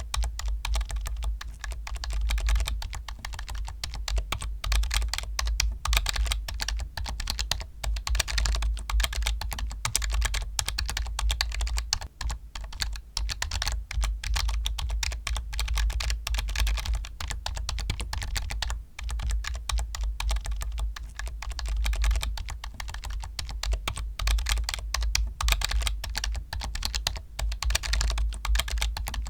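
Fast, continuous typing on a computer keyboard: a dense run of key clicks and keystroke thuds, pausing briefly twice.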